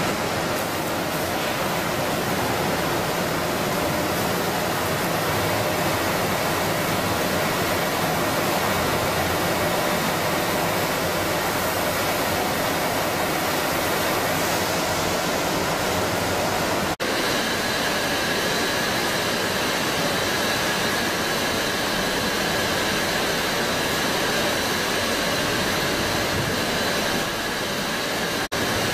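Steady rushing of water and machine noise from an industrial cook, quench and chill system for pasta, with water pouring through its stainless-steel mesh baskets. The noise drops out for a moment twice, about two-thirds of the way in and near the end. A faint steady whine sits under the noise after the first break.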